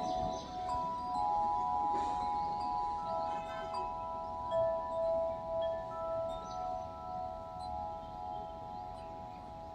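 Several steady ringing tones at different pitches held together, swelling and fading, like bells or chimes, with a few faint ticks.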